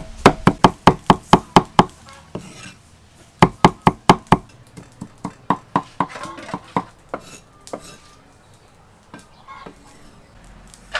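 Cleaver chopping garlic and green leaves on a wooden chopping board: quick runs of sharp strikes, about five a second, breaking off about two seconds in, then a second short run, followed by slower, softer taps and only a few scattered ones near the end.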